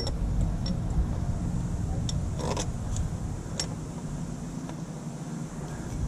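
A few light, scattered clicks and taps from a bolt and hands working at the AC compressor's mounting, over a steady low rumble.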